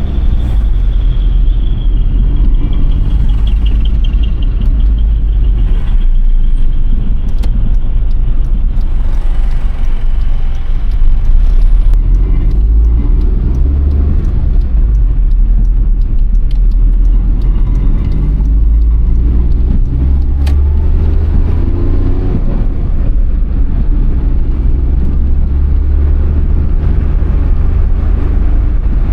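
Cabin sound of a Suzuki Alto Works (HA11S) kei car being driven: the small three-cylinder engine and road rumble, the engine pitch rising and falling with the throttle. A faint high whine is heard over it for the first few seconds.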